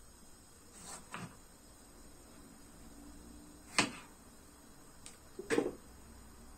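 Kitchen knife cutting a tomato on a plastic cutting board: four separate short knocks of the blade against the board, the loudest about four seconds in, over quiet room tone.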